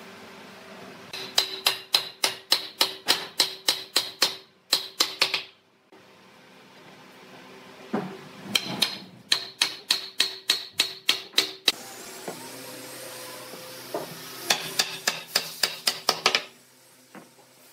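Wooden mallet hammering pine leg posts down into the joints of a wooden base frame, in three runs of quick, even strikes, about four a second.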